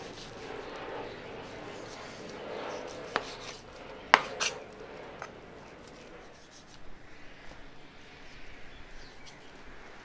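Knife trimming fat off raw brisket on a plastic cutting board: soft scraping and slicing, with a few sharp knocks about three to five seconds in, the loudest just after four seconds.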